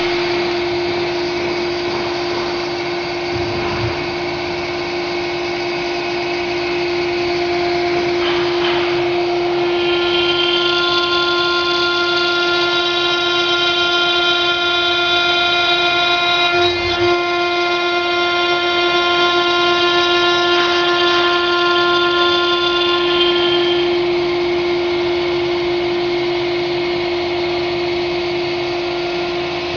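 Spindle of an LY-DFJ-800 CNC stone engraving router running with a steady whine as its bit carves stone. A cluster of higher, shriller tones comes in about ten seconds in and fades out about six seconds before the end.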